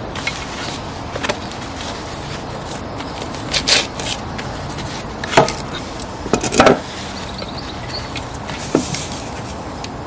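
Gloved hands scooping potting compost out of a metal bucket: a handful of short rustling scrapes, the loudest about halfway through, over a steady background hiss.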